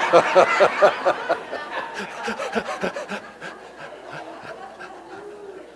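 Laughter that is loudest at first and dies away over about four seconds: a man laughing heartily at his own joke, with the room laughing along.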